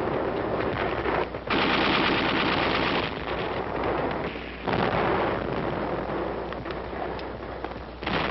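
Battle gunfire: rapid machine-gun fire in a continuous crackling din. It surges suddenly louder about a second and a half in, again near five seconds and once more near the end, easing off after each surge.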